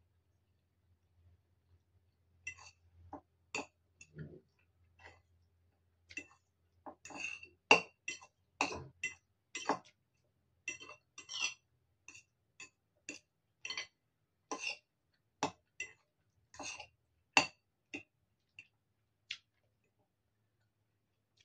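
Metal fork clinking and scraping against a ceramic bowl as noodles are twirled and lifted, in many short irregular strokes, with eating mouth sounds between.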